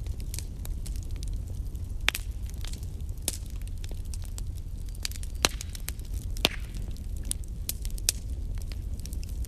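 Burning wood crackling, with irregular sharp pops, the loudest about two, five and a half and six and a half seconds in, over a steady low rumble.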